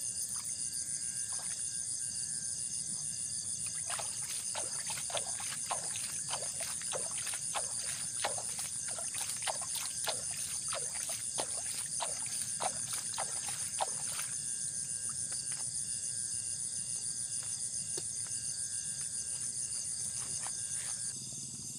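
Night insects keep up a steady high-pitched chorus. From about four to fourteen seconds in, a quick irregular run of short sharp clicks sounds over it.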